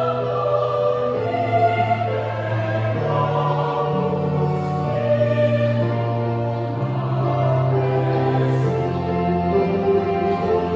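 Youth choir singing in several parts, holding long chords, with the lower voices moving to a new note every second or two.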